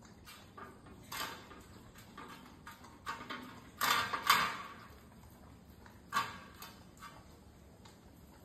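A dog eating from a stainless-steel plate: scattered scrapes and clinks as its muzzle and teeth knock the metal plate. The loudest clatter comes about four seconds in, with another sharp one about two seconds later.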